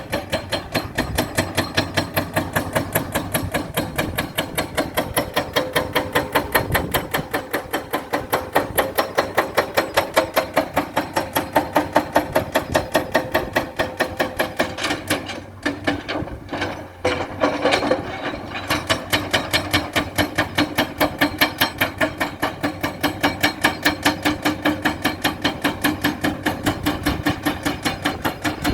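Rapid, regular mechanical knocking, several sharp strikes a second, which falters briefly past the middle and then carries on at the same pace.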